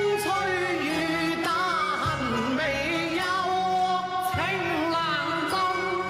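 Cantonese opera song (yuequ) sung as a duet over its instrumental accompaniment, the voice sliding between long held notes.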